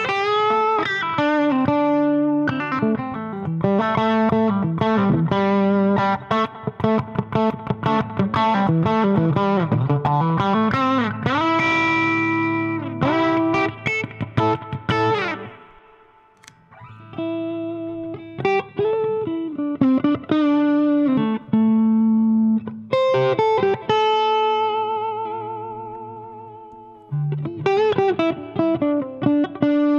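Electric guitar played through an Electro-Harmonix amp head and cabinet: picked single notes and chords, with notes bent and wavering in pitch and a short pause about halfway.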